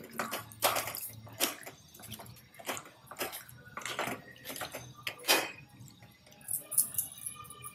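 Raw Bombay duck (bombil) fish being tossed and squeezed by hand in a plastic colander, making irregular wet squishes and drips, roughly one or two a second.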